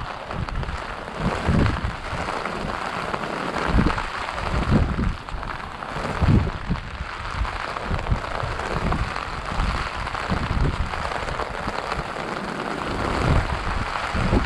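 Heavy rain falling steadily in a tropical-storm downpour, with irregular gusts of wind rumbling on the microphone every second or two.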